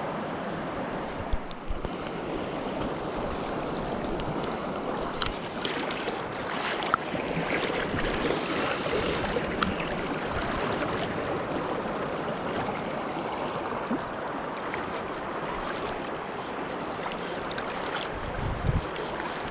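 Swift river water rushing steadily, with a few short sharp knocks scattered through it.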